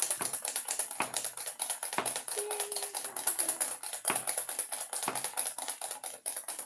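Wire whisk beating egg whites by hand in a stainless steel bowl: rapid, even clinking of the wires against the metal, several strokes a second.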